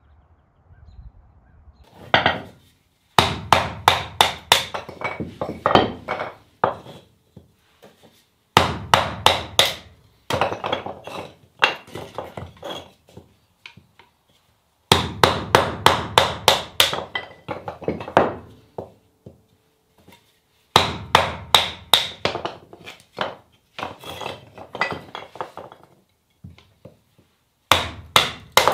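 Knife being batoned through firewood to split kindling: sharp strikes on the back of the blade, about five a second, in runs of several seconds with short pauses between.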